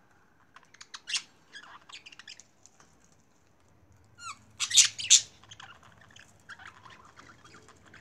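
Budgerigars chirping and calling in short bursts: a few sharp chirps about a second in, the loudest calls in the middle, then softer chatter near the end.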